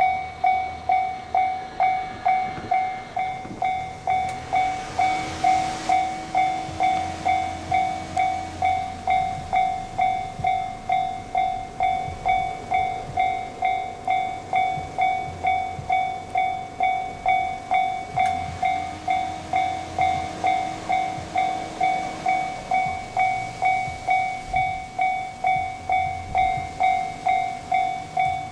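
Japanese level-crossing warning bell ringing steadily, about two dings a second. Twice a low hum swells and fades under it.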